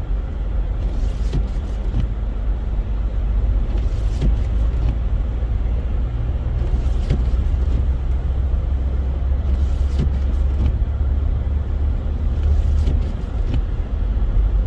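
A car driving on a snowy highway, heard from inside the cabin: a steady low rumble of engine and tyre noise.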